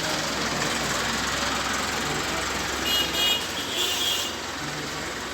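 Steady background traffic noise, with short, high horn toots about three seconds in and again just before the four-and-a-half-second mark.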